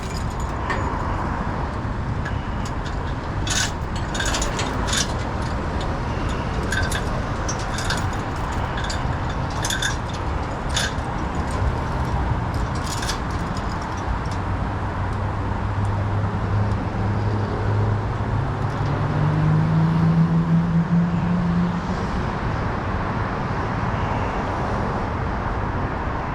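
Vehicle driving with steady road noise. Irregular clinks and rattles come through in the first half. About fifteen seconds in, the engine note climbs as the vehicle speeds up, then settles back a few seconds later.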